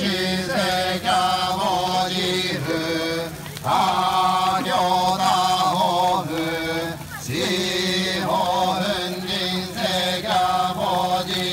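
Shugendō yamabushi chanting during a goma fire ritual: a steady, droning chant in phrases of a few seconds, broken by short pauses about three and a half and seven seconds in.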